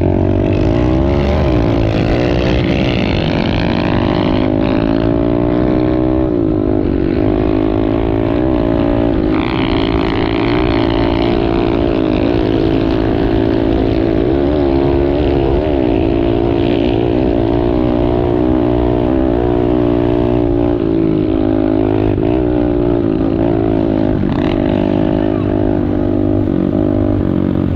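Small single-cylinder four-stroke pit bike engines (Kawasaki KLX110s) running and revving on a dirt trail ride, their pitch rising and falling with the throttle, over a steady low rumble.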